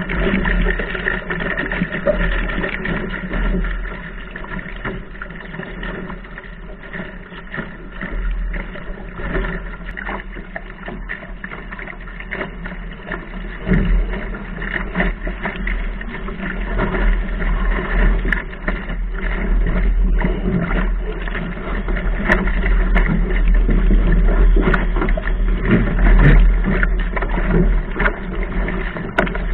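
Wind buffeting the microphone of a camera mounted on a Laser sailing dinghy's deck, with water rushing and splashing along the hull under sail. There are occasional knocks, and it gets louder over the second half.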